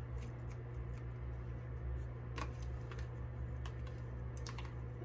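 Scattered light clicks and taps from metal feeding tongs and a bearded dragon moving on paper-towel lining, over a steady low hum.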